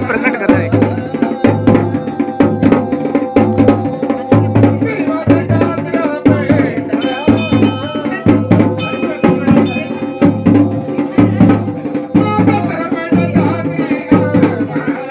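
Indian folk music led by drums beating a steady rhythm, about two strokes a second, with a melodic line over it. A bright ringing joins from about seven to ten seconds in.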